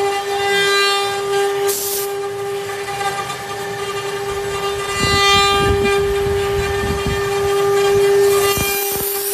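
Spindles of a multi-head CNC router whining steadily at one high pitch while their bits carve wood panels. A rougher, lower cutting noise comes in under the whine about halfway through.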